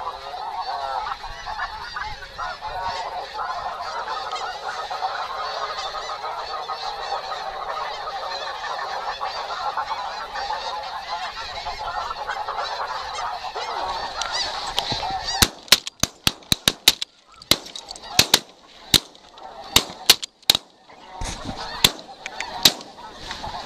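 A large flock of snow geese calling, a dense continuous din of high honks. About two-thirds of the way through, a rapid string of very loud shotgun shots breaks in, many cracks in quick succession over the last several seconds, with the honking nearly drowned out between them.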